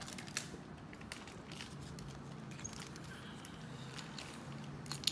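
Faint, scattered clicks and taps of small plastic building blocks being handled and pressed into place, with one sharper click near the end. A low steady hum runs underneath.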